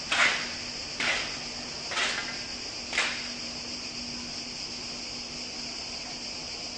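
Steady high buzz of an insect chorus, with four short, sharp sounds evenly spaced a second apart in the first three seconds.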